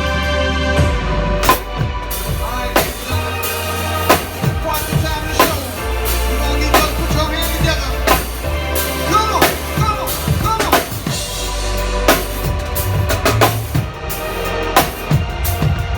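Keyboard music from a PianoArc 360-degree keyboard, with held chords, and a drum kit playing along with kick and snare hits about once a second. A few notes bend in pitch about halfway through.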